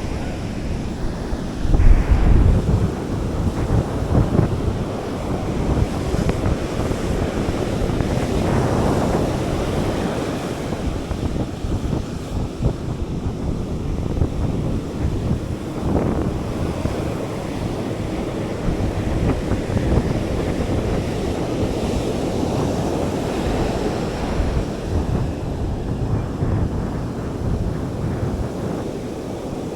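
Surf breaking and washing on a beach, with wind buffeting the microphone in gusts.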